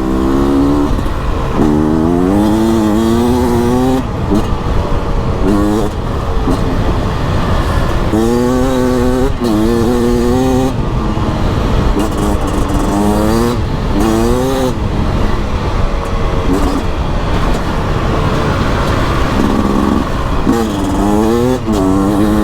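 Beta RR 300 (2024) single-cylinder two-stroke enduro engine under way, its revs climbing and dropping again and again as the throttle is opened and closed.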